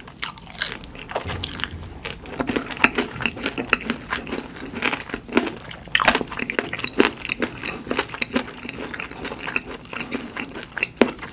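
Close-up crunching and chewing of crispy fried food: irregular crackles of batter breaking between the teeth, with wet chewing.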